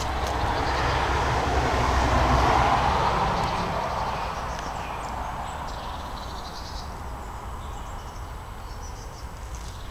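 Rumble of a passing vehicle, swelling to its loudest about two to three seconds in and then slowly fading away.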